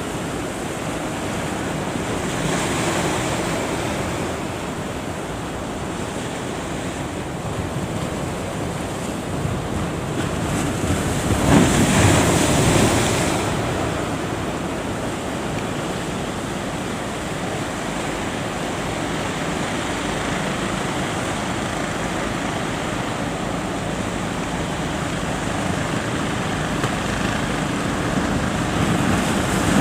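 Ocean surf breaking and washing at a river mouth, with wind buffeting the microphone; the roar swells louder for a couple of seconds near the middle.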